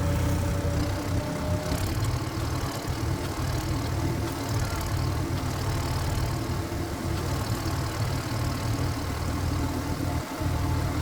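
Power tiller's single-cylinder diesel engine running steadily with a low rumble, while splitting tough black locust wood. A faint thin whine fades out about two seconds in.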